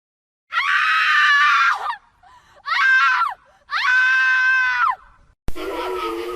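Three high-pitched human screams, a horror sound effect: a long one, a short one and another long one, each dropping in pitch as it cuts off. Near the end a different eerie sound starts suddenly, with wavering held tones.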